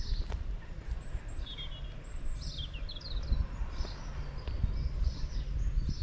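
Small birds chirping and twittering, with short repeated calls and quick falling notes, over a steady low rumble.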